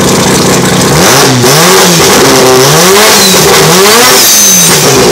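Turbocharged Wankel rotary engine of a Mazda RX-8 drift car idling, then revved in about four quick blips, each one rising and falling in pitch.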